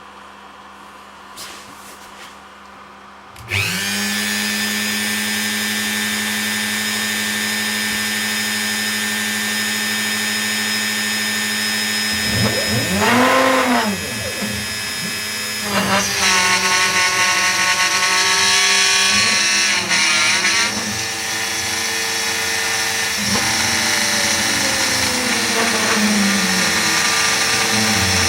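A Makita router, used as the spindle of a CNC machine, starts suddenly about three and a half seconds in and runs with a steady whine. Its pitch shifts several times as it works.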